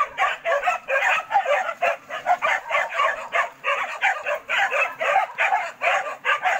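A pack of hunting dogs barking and yelping in a rapid, overlapping chorus at a wild boar they hold at bay.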